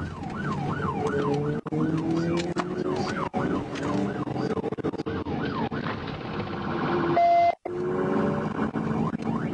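Police car electronic siren in a yelp, rising and falling about three times a second, changing to a faster warble around five and a half seconds in. About seven seconds in comes a short, loud steady blast, then a brief cutout, with engine and road noise underneath.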